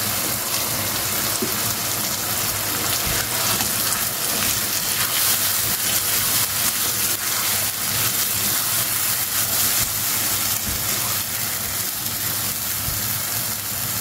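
Chicken pieces and freshly added almond paste sizzling steadily in a hot non-stick wok, stirred with a spatula.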